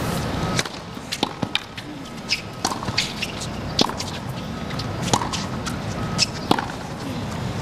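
Tennis rally on a hard court: tennis racket strikes on the ball about every second and a half, with lighter clicks in between, over a steady stadium crowd murmur.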